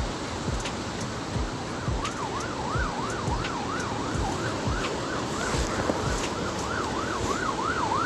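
A siren-like warbling tone rising and falling rapidly, about three sweeps a second, starting about two seconds in. A steady low rumbling background runs beneath it.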